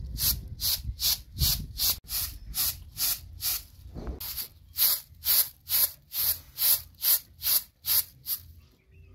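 Dry uncooked rice swishing across a round woven winnowing tray as it is tossed by hand: a steady rhythm of short hissing rushes, about two and a half a second, with a brief break about four seconds in and stopping shortly before the end.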